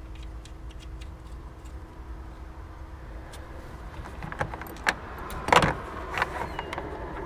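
Metal hand tools clinking and rattling as they are handled. The clatter sets in about four seconds in and is loudest at about five and a half seconds.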